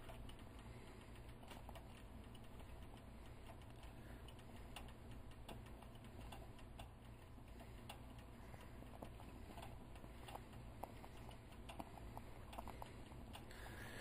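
Pot of chicken vegetable soup with biscuit dumplings in it, simmering: faint, irregular small pops and ticks of bubbles over a low steady hum.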